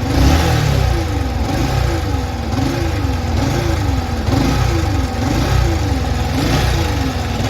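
Yamaha R15 V3's 155 cc single-cylinder engine running at idle, with a whine that rises and falls a little more than once a second. This is the humming noise the mechanic blames on a faulty coil plate (stator), along with a worn timing chain.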